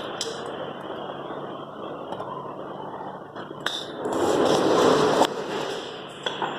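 Double cone blender running: a steady mechanical rushing noise with scattered sharp knocks, and a louder rushing swell about four seconds in that lasts just over a second.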